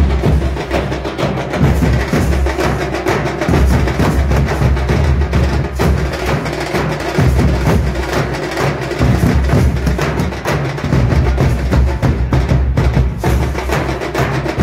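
A troupe of drummers beating large metal-shelled barrel drums with sticks in a loud, continuous, fast rhythm, with heavy low booms under sharper stick hits.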